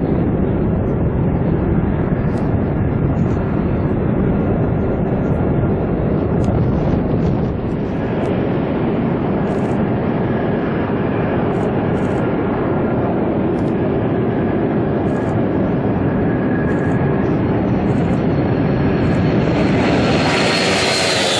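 Boeing KC-135 Stratotanker turbofan jet engines at takeoff power: a loud, steady jet roar with a faint whine, as the tankers roll down the runway and climb away.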